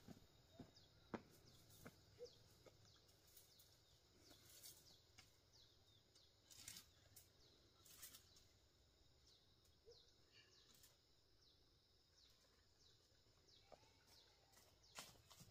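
Near silence with faint, short, high bird chirps that fall in pitch, repeated throughout, and a few scattered light clicks.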